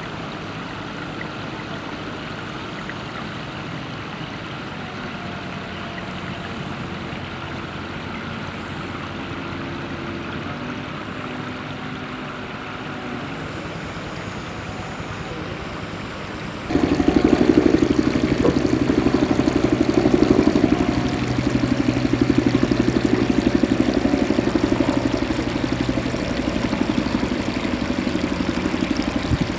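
Steady outdoor background noise. About seventeen seconds in it cuts abruptly to a louder, steady low rumble.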